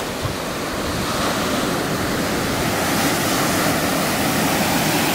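Ocean surf washing onto a sandy beach, a steady rushing noise with no distinct breaks, mixed with some wind on the microphone.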